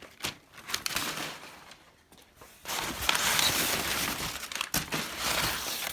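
Packing material rustling and crinkling as it is pulled out of a cardboard shipping box and handled. It goes briefly quiet about two seconds in, then keeps up louder with a few sharp crackles.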